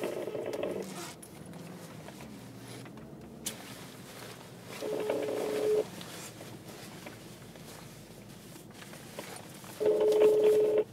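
Telephone ringing tone heard over a speakerphone: a steady low beep about a second long, repeating every five seconds, three times, as an outgoing call rings at the other end before it is answered.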